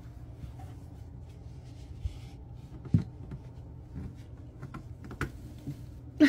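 Scattered light knocks and taps of a wooden dresser being gripped and shifted away from the wall, with a louder knock about three seconds in, over a steady low hum.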